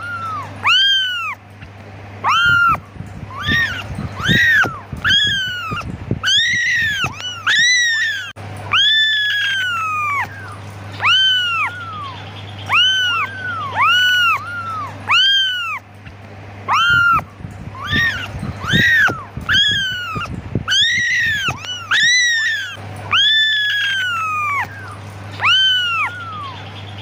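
Young kittens meowing over and over in high, thin calls that rise and fall, about one a second and at times overlapping, over a steady low hum: kittens calling for their mother.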